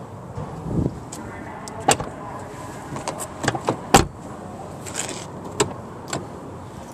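Clicks and knocks of a Jeep Grand Cherokee's doors and latches being handled, with one loud thump about four seconds in.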